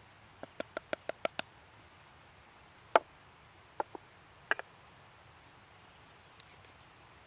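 A quick run of about seven light taps, then one sharp knock and a few softer knocks: a small wooden cup and a steel camp mug being tapped together and set down on a wooden board.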